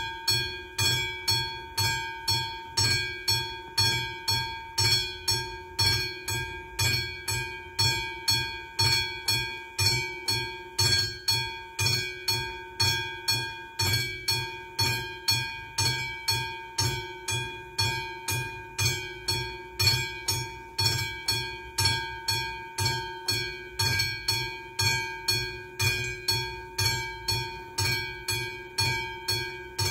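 Railway level crossing warning bell starting abruptly and ringing on: an evenly repeated ding, about two strikes a second, each one fading before the next. It warns that a train is approaching.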